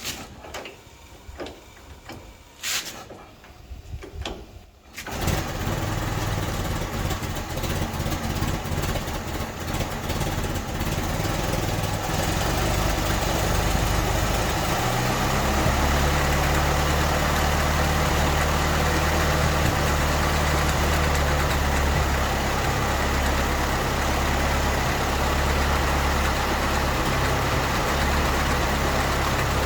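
1914 Ford Model T's four-cylinder side-valve engine starting: a few knocks, then it catches about five seconds in and runs fast, settling about fifteen seconds in to a lower, steady idle. It is the first start after the fuel line into the carburettor was repaired.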